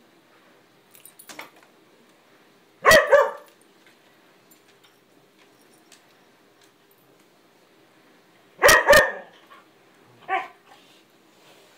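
Dog barking at a cat: two quick barks about three seconds in, another pair of barks near the nine-second mark, then a single softer bark a moment later.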